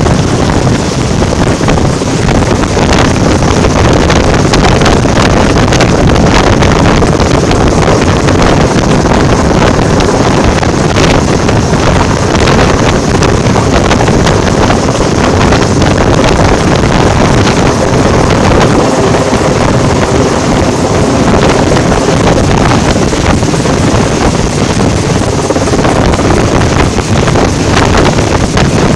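Loud, steady wind buffeting the microphone over the running of a motorboat's engine.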